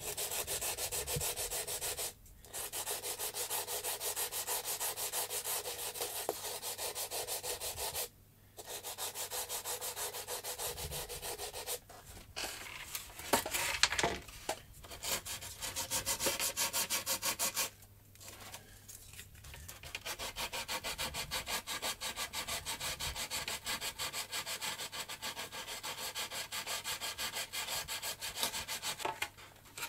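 Hand sanding of a small glider throwing peg with a scrap of sandpaper, rubbed all round in quick back-and-forth strokes, several a second. The strokes stop briefly a few times.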